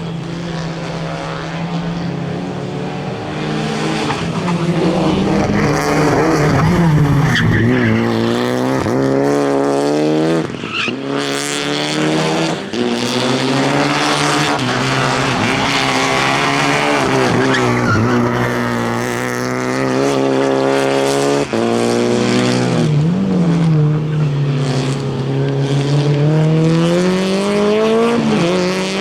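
Rally car engine running hard through a stage, its pitch repeatedly rising under acceleration and dropping with gear changes and braking, with a deep drop and climb back near the end.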